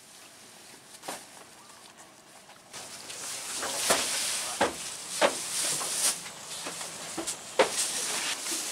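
Heavy plastic sacks being handled: after a quiet start, from about three seconds in, a steady hiss with several sharp rustles and thuds as sacks are dropped and slid over a tarpaulin.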